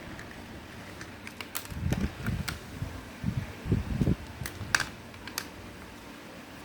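Small hard objects being handled: a scatter of sharp clicks and taps over dull low bumps and rustles, the busiest stretch between about two and four seconds in.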